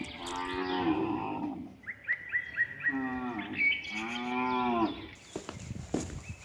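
Cows mooing: one long moo fades out about a second in, then two more moos follow just past the middle, each rising and then falling in pitch.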